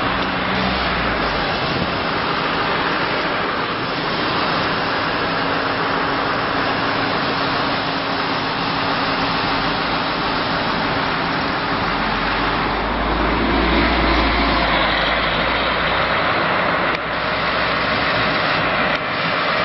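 Heavy diesel vehicle engines and street traffic, a steady rumble with hiss; a deeper engine rumble swells for a few seconds around the middle as a double-decker bus passes.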